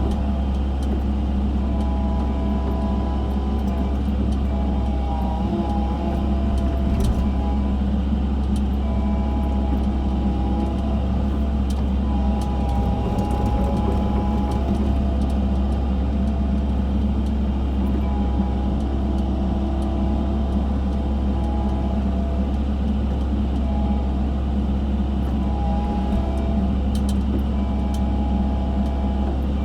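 Hydraulic excavator's diesel engine running steadily while digging, with higher whining tones from the hydraulics that shift in pitch now and then.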